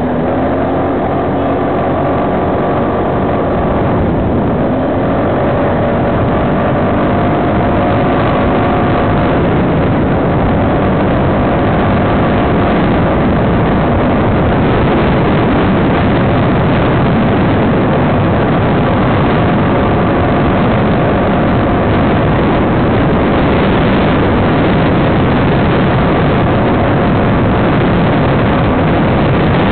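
Loud, steady engine drone and wind rush on the microphone of a vehicle moving through city traffic, with a faint engine tone that drifts in pitch during the first several seconds.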